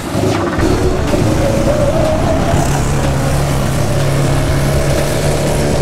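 Small Harbor Freight gas engine of a wooden go-kart running under way, with tyre and wind noise over gravel; the engine note wavers upward in the first couple of seconds, then holds steady.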